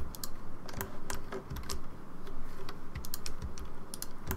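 Computer keyboard keys and mouse buttons clicking in an irregular run of short taps, from entering shortcuts and selecting points in Blender.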